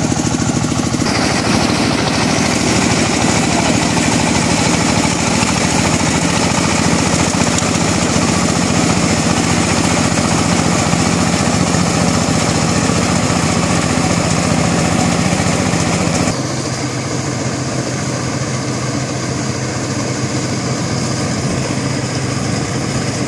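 Small rice combine harvester's engine and cutting and threshing machinery running steadily while it harvests standing rice. About two-thirds of the way in the sound drops suddenly to a somewhat quieter, lower drone.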